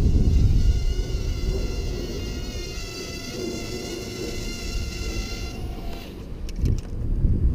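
Motors and propellers of an SPC Maker 90X micro racing quadcopter whining in flight: a steady, high buzzing made of several pitched tones, over a low rumble that is loudest in the first second. The whine fades out about six seconds in.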